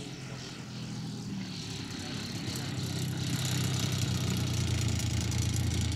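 Radio-controlled clipped-wing Piper Cub's Titan ZG 80B 80 cc two-stroke petrol engine running with its propeller, a steady note that gets louder through the second half as the model rolls down the grass strip for takeoff.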